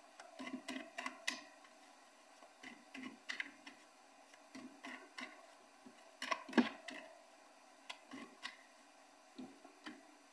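Faint, irregular clicks and taps of tarot or oracle cards being handled and laid on a table, with a small cluster about six seconds in.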